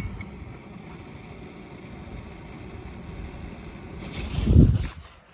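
Thrown firecracker going off with one loud boom about four and a half seconds in, after a few seconds of low, steady rumble.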